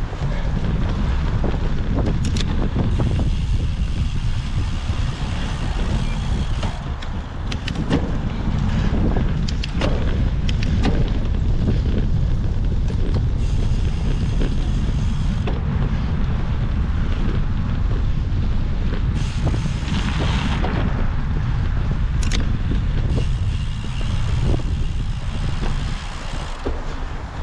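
Wind buffeting the microphone over a steady low rumble, with scattered clicks and knocks, as from a cyclocross bike ridden over rough ground.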